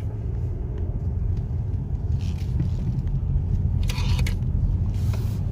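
Steady low rumble of a car's road and engine noise heard from inside the cabin while driving slowly, with a few brief, faint higher noises about two, four and five seconds in.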